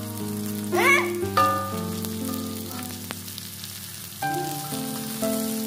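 Chopped shallots, garlic and green chilies sizzling in hot oil in a wok as they are stir-fried with a metal spatula, with soft background music of sustained notes. A brief high vocal sound comes about a second in.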